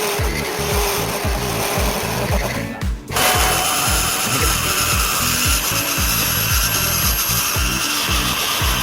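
A power tool with a rotary burr grinding into the steel of a car seat frame to cut away the part that interferes with folding. It runs continuously, stops briefly about three seconds in, then starts again with a high whine.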